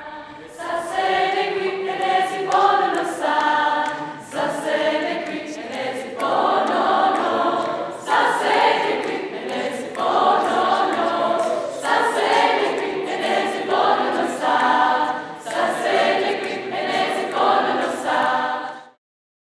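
A choir singing slow, sustained chords in phrases a few seconds long. It cuts off abruptly near the end.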